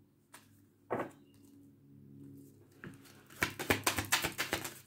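Oracle cards being shuffled by hand: a single soft knock about a second in, then a quick run of papery card clicks over the last second and a half.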